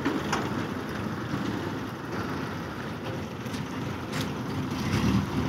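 Motor vehicle engine running with a steady low rumble, swelling briefly near the end.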